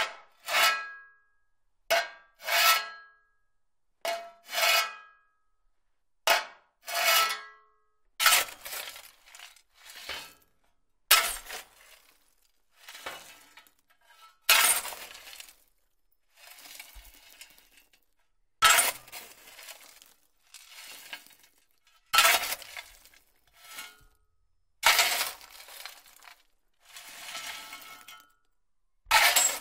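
Metal shovel scooping and scraping through ash: a series of short, sharp scrapes, the early ones with a brief metallic ring and coming in quick pairs about every two seconds. From about eight seconds in, the strokes come closer together and run longer and grittier.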